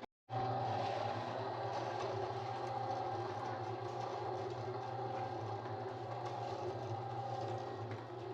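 Electric concrete mixer running steadily with its drum turning, a constant motor hum. It starts abruptly after a brief gap.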